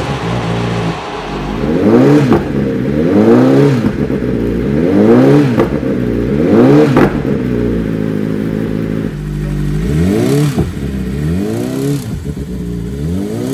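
BMW M1000RR superbike's inline-four engine on a dyno, revved again and again, its pitch climbing and dropping about once every one and a half seconds. The engine had begun making noises ahead of an internal failure that the owners put down to faulty bearings or assembly.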